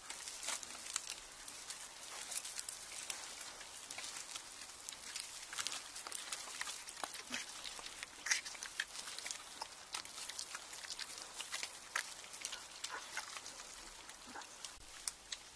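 Wild boar foraging on dry leaf litter and twigs: a dense, irregular crackling and crunching of rooting, chewing and steps, with no grunts.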